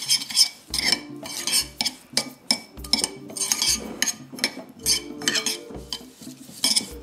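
Metal spoon stirring a thick seasoning-and-oil paste in a ceramic bowl, with repeated clinks and scrapes against the bowl's sides and bottom.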